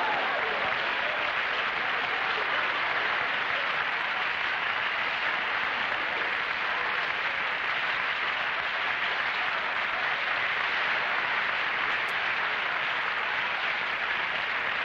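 Studio audience applauding, a long steady round of clapping.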